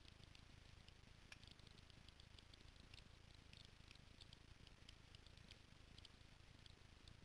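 Near silence: faint outdoor ambience with many light, scattered ticks.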